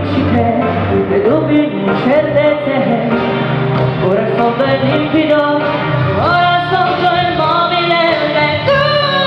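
Live pop song performed by a small band: female voices singing together into microphones over keyboard, drums and saxophone.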